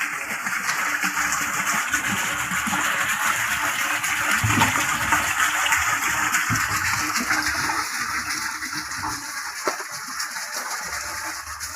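Water gushing steadily, with a few dull knocks.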